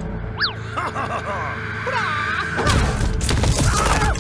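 Squeaky, wordless cartoon-style voice sounds with quick rising and falling pitch glides. About two-thirds in, they give way to a dense clatter of knocks and crashes.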